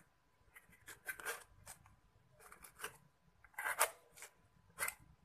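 Thin plastic bottle crinkling in a series of short bursts as hands squeeze slime out of it, the loudest a little past halfway and near the end.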